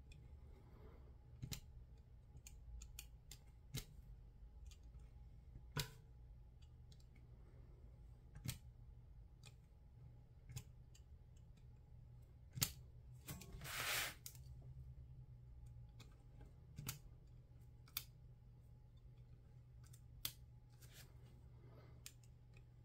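Craft knife blade cutting through two layers of paper: faint, irregular ticks and clicks as the blade pierces and lifts, with one longer scraping cut about thirteen seconds in. A steady low hum lies underneath.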